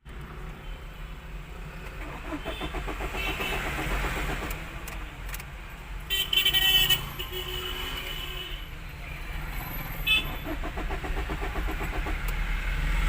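A Tata Vista's engine being cranked by the starter motor without firing, in two tries of a few seconds each: a crank-no-start caused by no fuel reaching the engine, as the fuel pump gets no current. A car horn sounds briefly about six seconds in.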